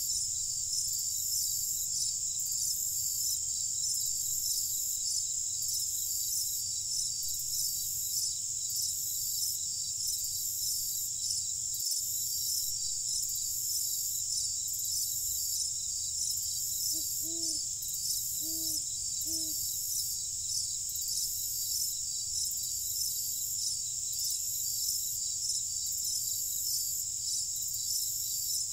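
Night chorus of crickets: a steady, high-pitched trilling that pulses evenly. A little past halfway, three faint, short low calls come about a second apart.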